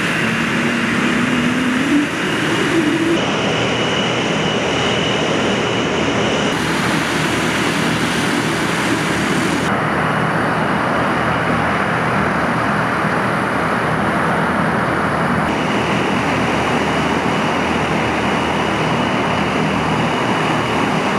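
Tu-95MS bomber's turboprop engines with contra-rotating propellers running on the ground: a loud, steady drone with a low propeller hum. A tone rises slightly in the first few seconds, and the sound's character shifts abruptly several times.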